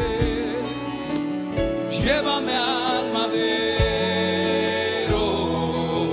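Spanish-language worship song: a band plays held chords over a sparse drum beat, and a singer comes in with a wavering, held vocal line about two seconds in.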